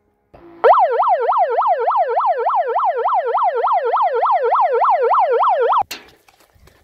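Handheld megaphone's built-in siren, wailing rapidly up and down about four times a second for about five seconds, then cutting off suddenly. It is the signal that starts the paintball game.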